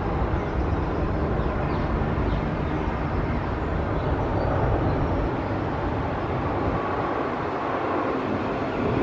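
Jet engines of a four-engine Boeing 747 freighter on final approach with its landing gear down, a steady rushing noise with low rumble. The deepest rumble thins about halfway through, and the higher rushing grows slightly toward the end.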